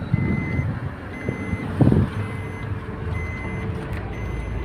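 A vehicle's electronic warning beeper repeats about once a second, over the low rumble of traffic and engine. Two louder low thumps come near the start and about two seconds in.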